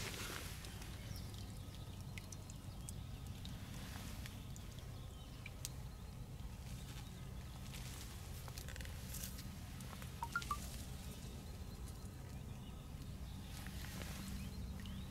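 Quiet waterside outdoor ambience: a faint, steady low hum, a few faint ticks, and two short faint chirps about ten seconds in.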